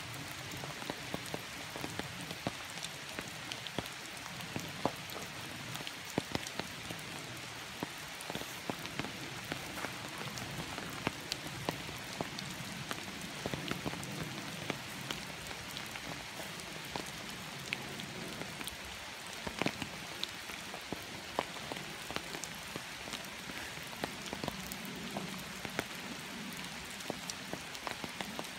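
A dog digging in soft earth: paws scraping the dirt and soil pattering down, with a steady hiss and many irregular ticks.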